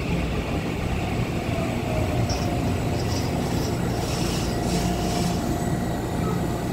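Taiwan Railway EMU900 electric multiple unit rolling slowly into the platform and coming to a stop. A steady low rumble runs under a faint whine, with a few short high hisses in the middle as it halts.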